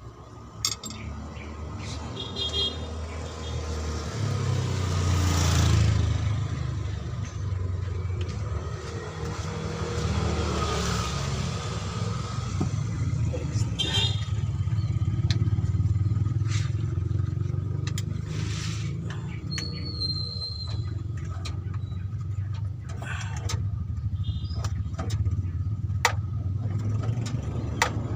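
Low motor-vehicle engine rumble that swells and fades several times, as vehicles pass, with occasional sharp metallic clicks of hand tools.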